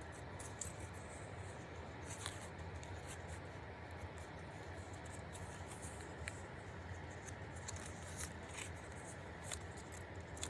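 Faint rustling and scattered light clicks, as of hands handling a plush toy and its tags, over a steady low hum.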